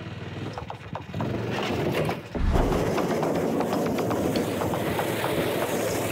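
Homemade steel-drum-wheeled ATV driving through snow: its small engine running under load, with clattering from the chain drive and drums. It grows louder about a second in, and a heavy thump comes a little after two seconds as the machine bucks.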